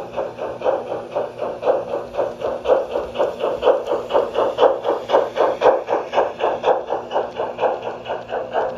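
G-scale model train running past on its track, a Forney locomotive pulling coaches, with an even rhythmic beat of about four or five strokes a second that is loudest in the middle as the locomotive goes by.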